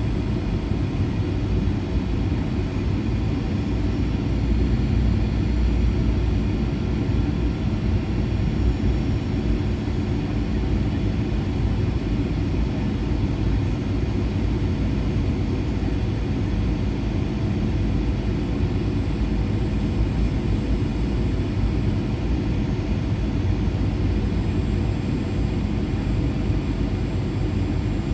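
Steady low rumble of engine and airflow noise in a Boeing 737-900 on approach to landing, heard from inside the cabin, with a faint high whine above it.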